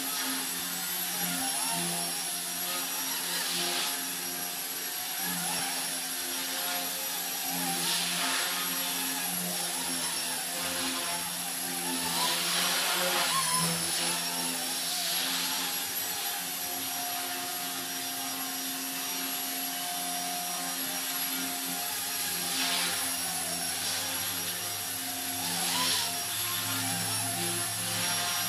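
Blade mCP X BL micro collective-pitch RC helicopter in flight: the steady whine of its brushless motor and the whir of its rotor blades, swelling and easing several times.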